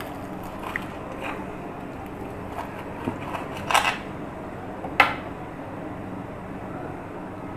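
Hands handling cut grilled sandwich halves: a few light clicks, a short crackle just before four seconds in and a sharp tap about a second later, over a steady low background hum.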